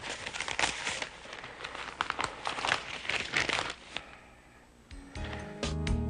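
Newspaper pages rustling and crinkling as they are handled and turned, in quick irregular rasps for about four seconds. About five seconds in, music comes in with sustained low notes and sharp hits.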